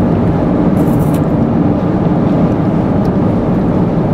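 Steady road and engine rumble inside a moving car's cabin, with a short high rustle about a second in.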